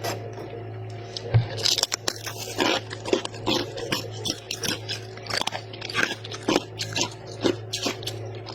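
Freezer frost crunched and chewed close to the microphone: sharp, crisp crunches about twice a second. A steady low hum runs underneath.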